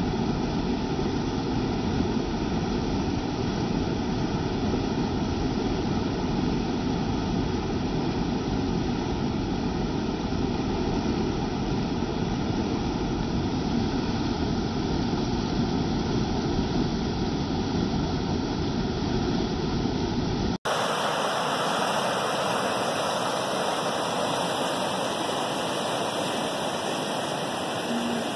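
Canal water pouring over a small weir: a loud, steady churning rush, heavy and deep. About twenty seconds in, the sound cuts abruptly to a brighter, hissier rush of the fast-flowing canal.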